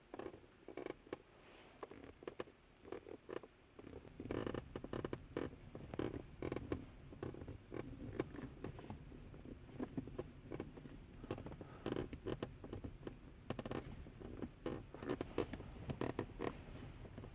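Shifter console of a 2010 Toyota Tacoma creaking and clicking, a run of short, irregular creaks over a low steady rumble.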